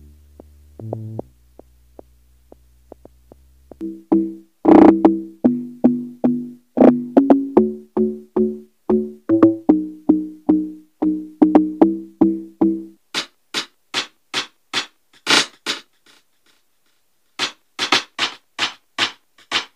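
Amapiano beat played back from the Caustic 3 music app: a faint low sustained bass note, then about four seconds in a quick, rhythmic run of short synth notes with some hard drum hits. From about thirteen seconds only crisp high percussion ticks remain, pausing briefly near the end.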